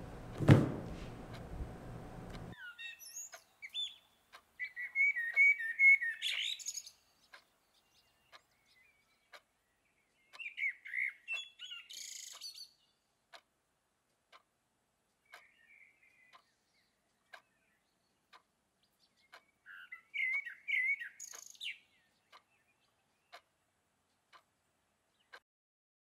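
A single thump about half a second in, then songbirds singing in short chirping, trilling phrases, four bursts a few seconds apart, with faint ticks about once a second in between.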